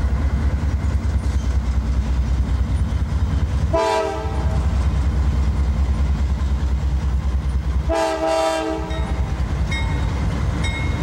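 Diesel locomotives, two GE Dash 8-40CW units, rumbling past with a steady throb. The air horn sounds twice, a short blast about four seconds in and a longer one about eight seconds in, and a faint regular dinging starts near the end.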